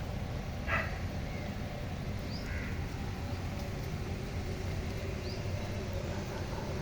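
A few short bird calls, the loudest one about a second in, with small high chirps later, over a steady low rumble.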